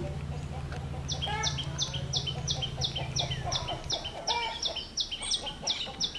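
A bird calling outdoors: a quick, regular run of short, high chirps, about three a second, starting about a second in, over a low steady hum that dies away about four seconds in.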